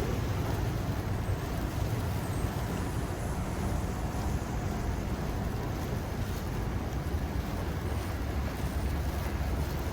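Steady low rumble of blizzard wind buffeting the microphone, over a general hum of city street noise.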